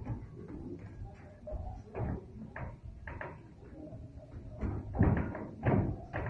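Irregular thuds of two boxers sparring in a ring, gloved punches landing, with a louder, quicker flurry of thuds near the end.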